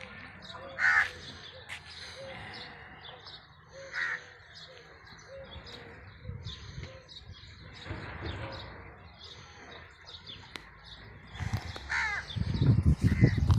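Crows cawing, with loud calls about a second in, again about four seconds in and near the end, over the steady chirping of smaller birds. A louder low-pitched noise comes in near the end.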